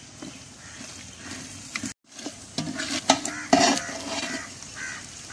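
A perforated metal ladle stirs and scrapes mutton in masala around a large aluminium pot, with a sizzle as the meat fries in oil. The sound breaks off for a moment about two seconds in, then the scrapes come louder.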